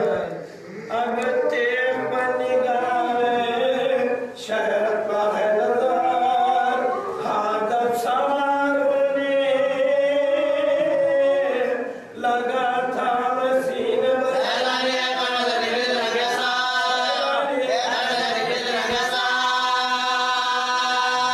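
A man's voice chanting an Urdu marsiya (elegy) without instruments, in long held, sliding lines, with short breath pauses about half a second, four seconds and twelve seconds in.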